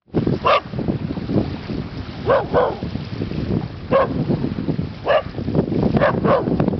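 Australian Shepherd barking: about seven short barks spread over several seconds, some in quick pairs, alarm barking at a buoy in the water that it is afraid of. Wind rumbles on the microphone underneath.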